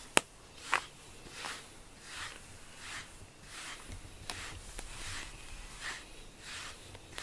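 Rubber grooming brush drawn through a short-haired cat's fur in repeated strokes, about one every three-quarters of a second. A single sharp click just after the start.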